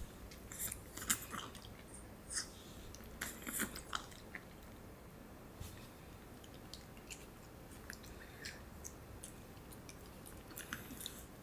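Pomeranians chewing hand-fed treats: faint, crisp clicking chews that come in short clusters, busiest in the first few seconds and again near the end.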